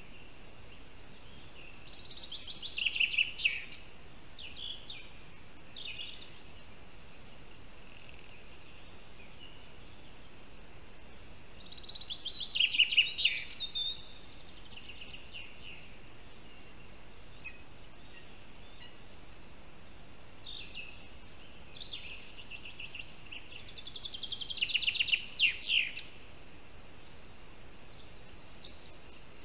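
A small songbird singing three short, fast trilled phrases about ten seconds apart, each a quick run of notes that ends in a brief high flourish, over a faint steady high hiss.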